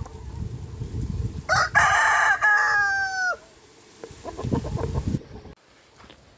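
A rooster crowing once, about a second and a half in: one long call, held level and then dropping away at the end. Low rumbling noise comes before the crow and briefly again after it.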